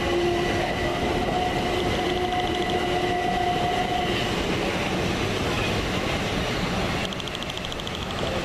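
Gatwick Express Class 387 Electrostar electric multiple unit moving away from the platform: a steady electric motor whine over the rumble of wheels on rails. The whine stops about halfway through, and the rumble eases slightly near the end as the train draws off.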